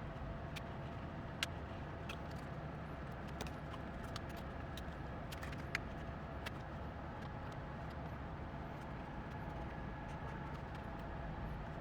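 Scattered sharp little clicks and taps, about a dozen spread irregularly, over a steady low hum.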